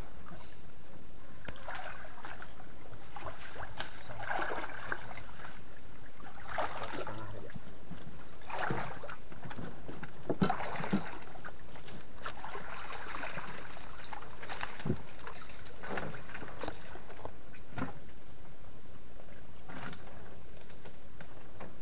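Irregular water sloshing and splashing as someone works in swamp water beside a wooden canoe, with several knocks against the canoe's wooden hull, the sharpest about ten seconds in.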